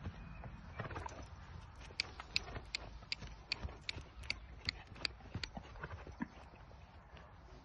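Friesian horse's hooves clip-clopping on a dirt paddock as it trots, sharp uneven hoofbeats a few times a second that grow fainter near the end.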